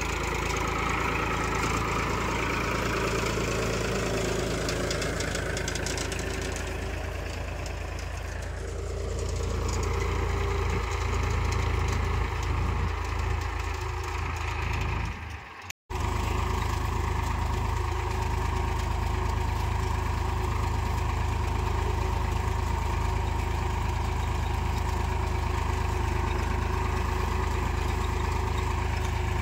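Powertrac 434 tractor's diesel engine running steadily under load as it pulls a potato digger through the soil. The sound drops out for a moment about halfway through.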